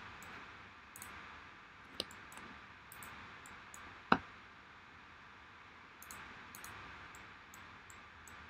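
Computer mouse clicks over a low steady hiss: two sharp clicks about two seconds apart, the second louder, among fainter scattered ticks.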